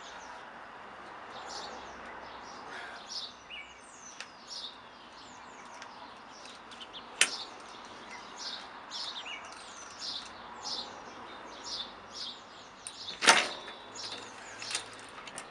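Small birds chirping over and over, short falling notes about once a second, with two sharp clicks or knocks about seven seconds in and, louder, about thirteen seconds in, as the bike's rear wheel is being taken out.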